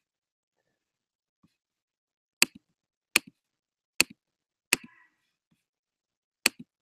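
Clicking at a computer: five sharp clicks, each followed at once by a fainter second click, as of a button being pressed and released. The first four come about once every three quarters of a second, and the fifth follows after a longer pause.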